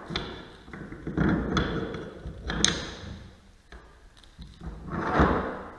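Spacer blocks being fitted by hand into a davit mount on a wooden swim platform: irregular thuds, knocks and scraping as they are pushed into place, with a sharp click about two and a half seconds in.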